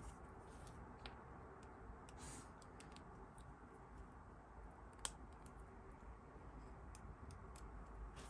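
Faint, scattered small clicks and taps of plastic model-kit parts being handled and fitted together, with one sharper click about five seconds in.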